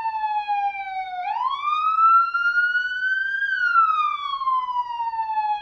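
Police car siren sounding a slow wail: the pitch falls, turns upward a little over a second in, climbs to a peak about three and a half seconds in, then falls again.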